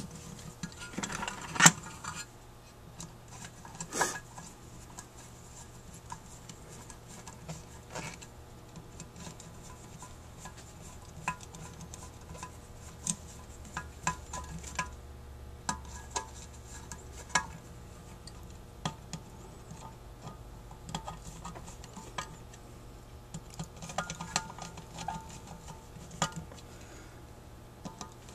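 Small screws and lock washers clinking against the cast metal body of a Rochester 4GC carburetor as they are fitted and turned in: scattered light metallic clicks and taps, with a louder clatter of handling about a second in.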